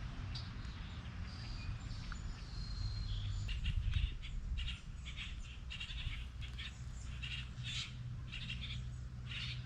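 Birds calling: a few thin whistles, then from a few seconds in a run of short calls repeated about twice a second.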